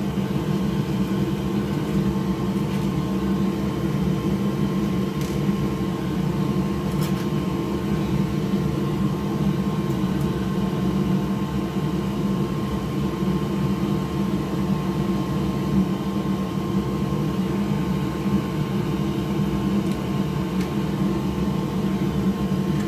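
Steady machine hum, like a fan or air handler running, with a faint steady tone above it. There are a couple of faint clicks early on.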